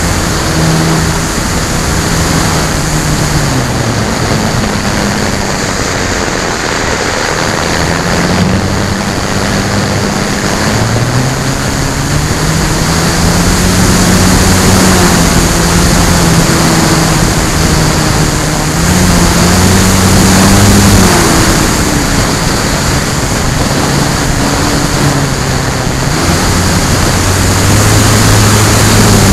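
Onboard sound of an FMS Bf-109 electric RC warbird in flight: a loud, steady rush of wind over the microphone, with the motor and propeller hum sliding down and up in pitch several times as the throttle is worked.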